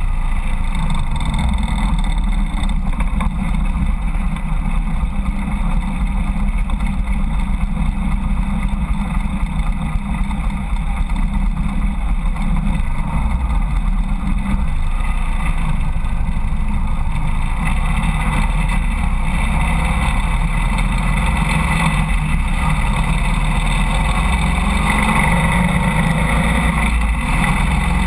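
Harley-Davidson Road King's V-twin engine running at low speed, then pulling away and accelerating. Wind and road noise grow over the second half as the motorcycle gathers speed.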